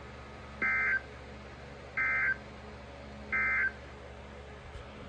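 Three short bursts of Emergency Alert System (SAME) digital data tones from a NOAA Weather Radio broadcast, a harsh two-tone warble about a second and a half apart, over faint radio hiss. This is the end-of-message code that closes the alert.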